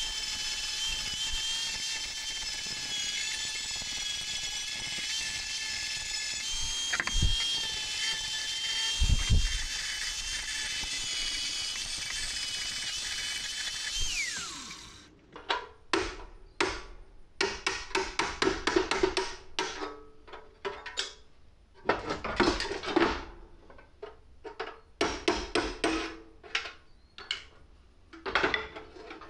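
Angle grinder with a thin disc running on the sheet-metal blower housing: a steady high whine that winds down about fourteen seconds in. After that come irregular bursts of quick metallic clanks and taps on the metal.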